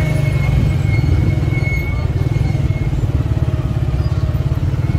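Vehicle engine running steadily in congested traffic, with a rapid low pulse, and a faint steady high whine over it in the first half.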